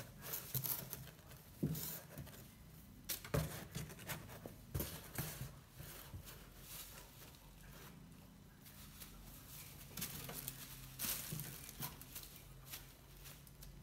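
Plastic bubble wrap crinkling and rustling in irregular bursts as kittens paw and wrestle with it, with several sharp thumps in the first five seconds.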